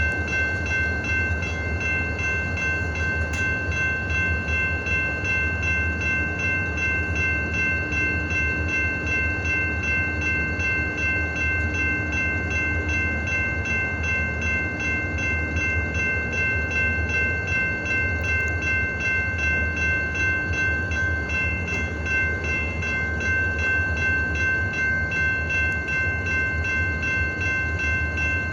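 Diesel locomotive running steadily: a low engine rumble with a constant high-pitched whine held over it, unchanging throughout.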